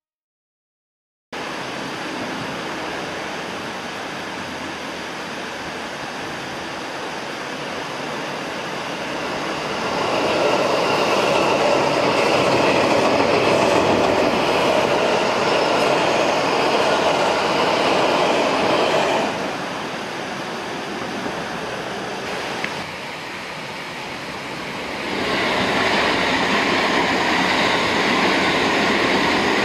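JR West electric trains passing close by on ballasted track: first a coupled 221 series and 223 series set, then a 287 series limited express. The rush of wheels on rails and running gear starts about a second in, grows louder as the first train goes past, eases off, then swells again as the second train passes near the end.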